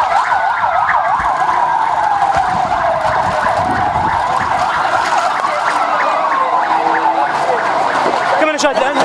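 Emergency vehicle siren sounding: a quick yelp at the start, then a slow wail rising and falling in pitch every few seconds. Voices break in near the end.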